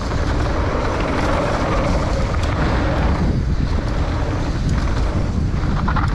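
Wind rushing over a GoPro's microphone on a mountain bike riding a dirt trail, with steady tyre noise and small rattles and clicks from the bike.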